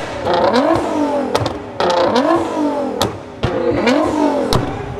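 A modified car's engine revved hard in about four quick blips, each a rising pitch that drops back. Sharp exhaust pops and cracks come as the throttle closes between revs.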